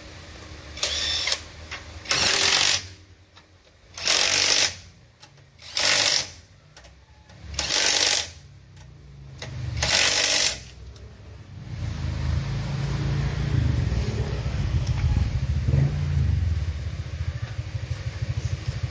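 A run of short hissing bursts, about one every two seconds, six in all. Then, from about twelve seconds in, an engine running with a steady, rapid low throb.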